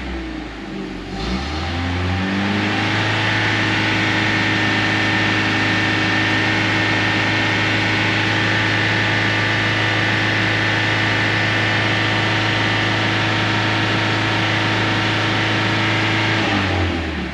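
Jeep Cherokee XJ engine, fitted with a new Accel performance ignition coil, revving up about two seconds in and holding a steady speed of around 2500 rpm, then dropping back near the end. It runs smoothly at the held speed, without hunting or misfiring.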